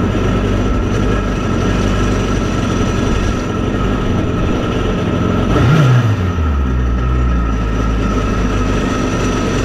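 Kawasaki STX-15F jet ski's four-stroke four-cylinder engine running on its trailer out of the water, just after starting, with one brief rev about halfway through before it settles back to idle.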